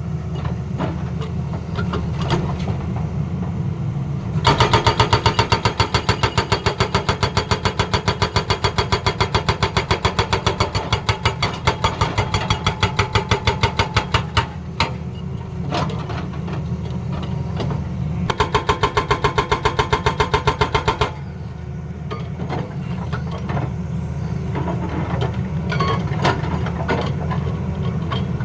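Tata Hitachi excavator's hydraulic breaker hammering in rapid, evenly spaced blows, over the steady running of the machine's diesel engine. The hammering comes in two spells: a long one of about ten seconds starting about four seconds in, then a shorter one of about three seconds.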